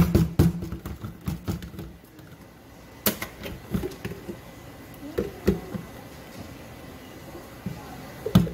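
Clicks and knocks of hard plastic as a Ninja blender's lid is unlatched and lifted off the pitcher and handled over a dish: a quick run of clicks at the start, scattered knocks after, and a loud knock near the end.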